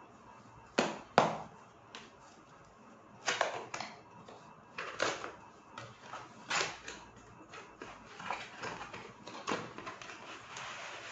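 Cardboard product box being opened by hand: two sharp snaps about a second in, then a string of scraping and rustling sounds of cardboard being handled.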